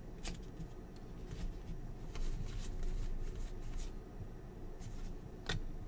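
A stack of NBA Hoops basketball cards being flipped through by hand, with soft rustling and light card-on-card flicks, and a sharper tap about five and a half seconds in.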